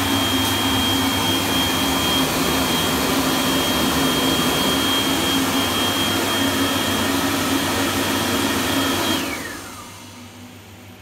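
Wandsworth HD1/T (Anda Series 3000) push-button hand dryer blowing, a rush of air with a steady high whine, then switching off about nine seconds in. The whine slides down in pitch and fades as the motor winds down, leaving a quieter steady hum.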